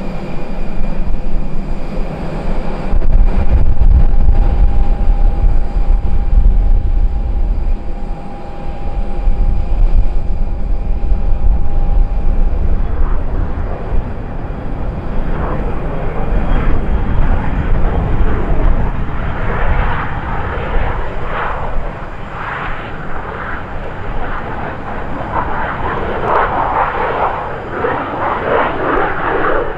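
Aircraft on the runway: a deep rumble dominates the first several seconds, then the engine noise of a three-engined Dassault Falcon business jet grows stronger and brighter in the second half as it rolls along the runway.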